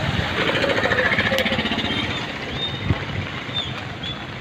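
A small motorbike engine buzzing past close by, fading out about two and a half seconds in, over a steady rushing background noise.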